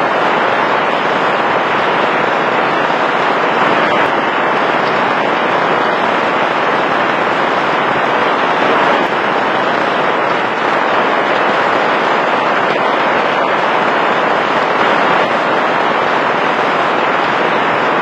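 Heavy rain falling steadily in a dense, even hiss, with a few faint drop ticks.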